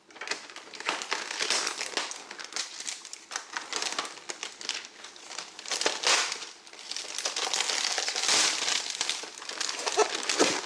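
Clear plastic packing film crinkling and crackling as hands pull and crumple it off a rifle packed in a styrofoam tray. The crackling comes in uneven spells with a few short lulls.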